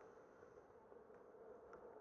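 Near silence: a faint steady hum, with a couple of faint ticks in the second half.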